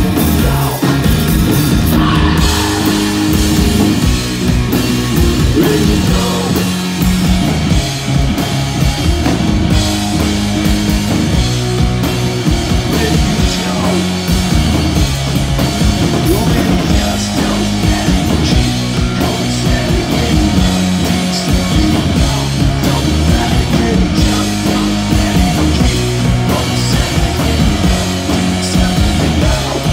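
Live rock band playing loud: distorted electric guitar on a repeating riff over a drum kit.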